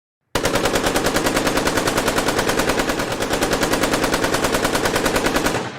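AK-47 assault rifle firing full-auto in one long unbroken burst of about five seconds, about ten shots a second, starting about half a second in and ending with a short fading echo.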